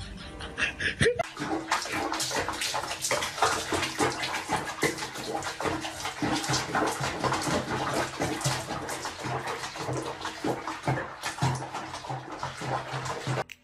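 Water splashing and sloshing in a bathroom basin with a wet cat sitting in it, an irregular stream of splashes that starts about a second in.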